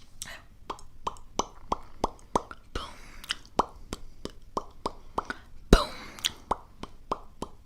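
Close-up soft clicks and pops, about three a second, with a few brief breathy hisses and one sharper pop near the end.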